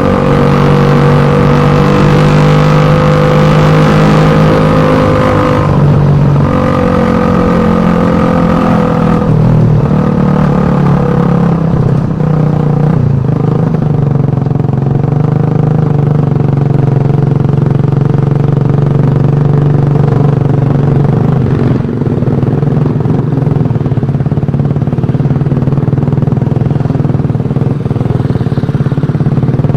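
Suzuki Satria FU 150's single-cylinder 150 cc four-stroke engine running loud through its exhaust, held at raised revs with a brief dip, then dropping about nine seconds in to a lower steady speed.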